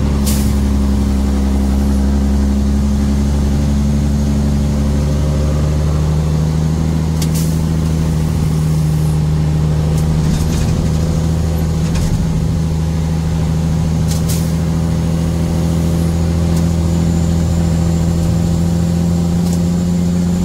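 A car being driven: a steady engine hum and road noise, with a few short clicks or knocks.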